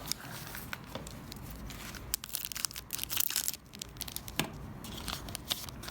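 The wrapper of a trading card pack being torn open and crinkled by hand, a run of sharp crackles that is loudest about two to three seconds in.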